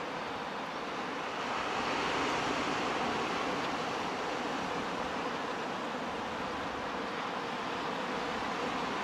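Barents Sea surf washing onto a pebble shore: a steady rushing that swells a little about two seconds in.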